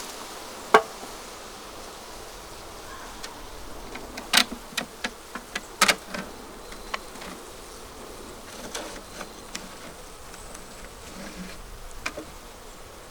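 Disturbed honeybees buzzing around an opened hive, with a scattering of sharp clicks and knocks, most of them about four to six seconds in.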